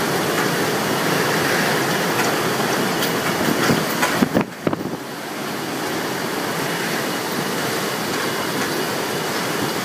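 Hurricane wind of 70+ mph roaring and buffeting the microphone in a steady rush. About four and a half seconds in there are a few sharp knocks and a brief dip, then the wind carries on a little quieter.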